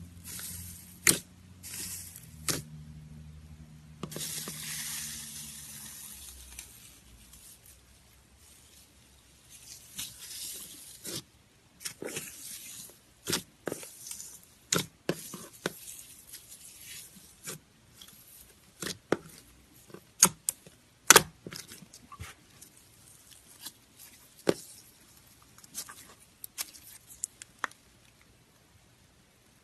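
Hands working dark red slime covered in gold foil. The foil crinkles and rustles for the first few seconds. After that come the slime's sharp clicks and pops as it is pressed and stretched.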